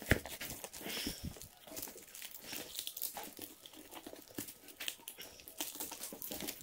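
Hands tearing open a parcel: cardboard ripping and plastic stretch wrap and packing tape crinkling and tearing in an irregular run of crackles and rustles, with a sharp knock just after the start.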